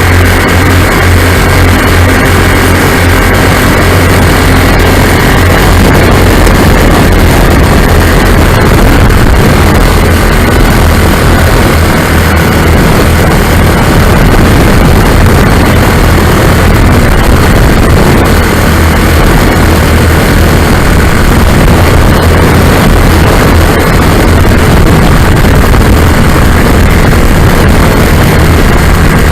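Lazair ultralight's engines droning steadily in flight, loud and even, mixed with heavy wind rush across the aircraft.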